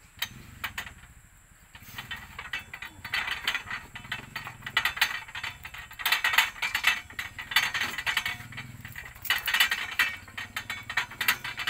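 Rapid metallic clicking and ratcheting in repeated bursts of a second or two, stronger from about three seconds in. It comes from a hand-drilled well's steel pipe being turned with a pipe wrench beneath a hanging toothed pulley block.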